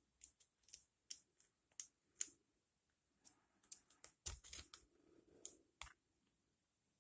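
Faint, sharp, irregular clicks of a hook pick and tension wrench working the pins inside an ASSA Ruko padlock. A quicker run of clicks comes about four to six seconds in.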